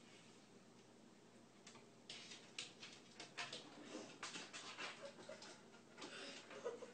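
Quiet, then from about two seconds in a run of light clicks and knocks as a cat claws at a wooden kitchen drawer, pulls it open and climbs into it.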